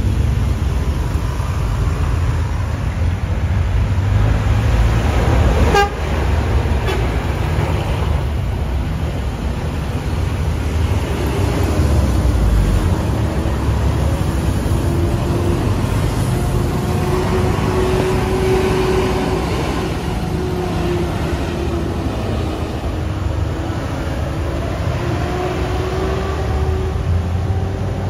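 Heavy road traffic: bus and truck engines running in a steady low rumble, with car horns tooting and a wavering engine drone coming in about halfway through.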